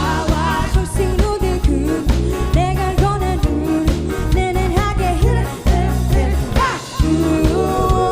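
Live pop band performing a K-pop cover: a singer carries the melody over bass and drums.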